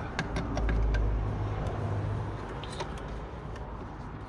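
Low rumble of a passing vehicle, loudest about a second in, with a few light metallic clicks of a wrench being worked onto a brake line nut at the master cylinder.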